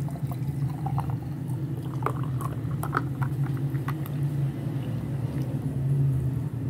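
Blended pineapple and cucumber juice pouring into a glass over ice, with scattered faint splashes and clicks in the first half, over a steady low hum.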